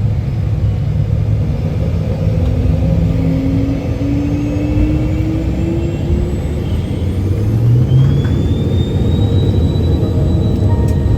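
Learjet 60's twin turbofan engines spooling up over a steady rumble, with a whine that climbs in pitch about halfway through and then holds.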